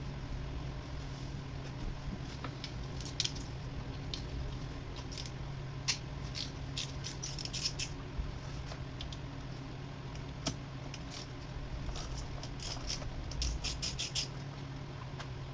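Light metallic clinks and rattles of hand tools and small metal parts being handled, coming in two bunches of quick clicks, over a steady low hum.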